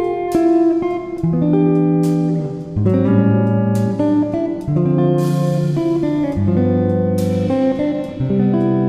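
Background music of plucked guitar, a new chord struck about once a second.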